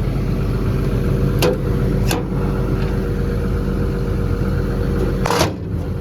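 Cummins diesel engine of an XCMG XE210CU hydraulic excavator idling steadily. Two light clicks come a second and a half to two seconds in, and a brief, louder clack comes near the end.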